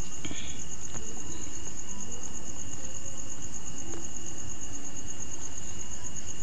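A cricket chirping in a steady, evenly pulsed high trill over a constant low background hiss.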